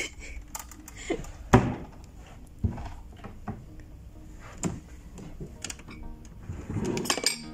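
Furniture being handled: a sharp thunk of a door or drawer shutting about a second and a half in, then a few lighter knocks and clicks as wooden cabinet drawers are pulled open by their metal handle.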